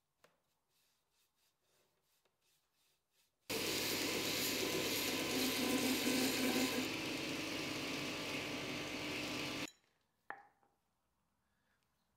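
Belt grinder running with the spring-steel edge of a laminated axe head held against the belt, grinding the final edge after tempering. The grinding lasts about six seconds, starting and stopping abruptly.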